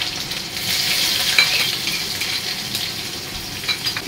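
Mustard seeds and curry leaves sizzling in hot oil in a kadhai: a steady hiss with small crackles and spits scattered through it.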